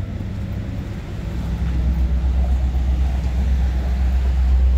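Low, steady rumble of downtown street traffic, growing louder over the last few seconds.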